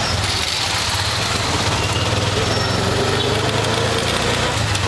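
Small engine of an auto-rickshaw running steadily, heard from on board amid city street traffic.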